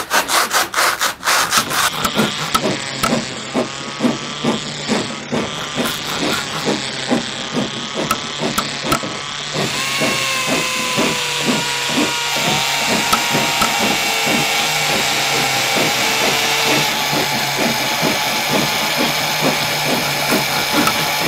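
Rapid sawing strokes, a serrated knife cutting through hardened expanding foam. This runs into a dubbed-in construction sound effect of rhythmic sawing under a steady power-tool whine, which changes pitch about ten seconds in.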